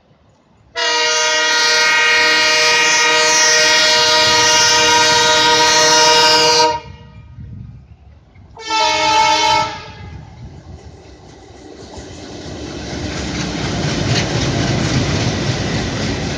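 Horn of twin Indian Railways diesel locomotives, a WDG3A and a WDM3A: one long blast of about six seconds, then a short blast about two seconds later. After that comes a rising rumble and rail clatter as the locomotives and train pass.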